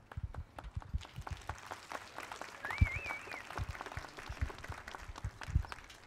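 Thin, scattered audience applause with a few low thumps, the loudest about three seconds in. A short warbling whistle sounds in the middle.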